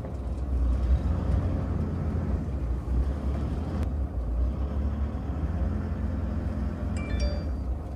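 Steady low rumble of a road vehicle, with a few brief high chirps near the end.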